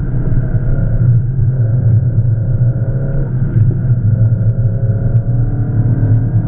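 Peugeot 306's 1.8-litre XU7JP4 four-cylinder engine, fitted with Jenvey throttle bodies, running at fairly steady revs on track, heard from inside the cabin as a loud low drone. Near the end the pitch starts to rise as the revs climb.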